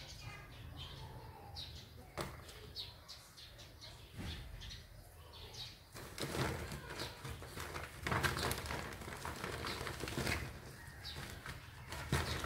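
Woven plastic sack rustling and crinkling in uneven bursts as kittens scrabble and play against it, busier and louder from about halfway through.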